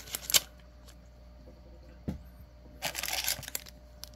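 Plastic wrapping crinkling as a cellophane-wrapped pack of card sleeves is picked up from a cardboard box, about three seconds in. Before it comes a sharp click just after the start and a short low knock around two seconds in, from small items being handled and set down.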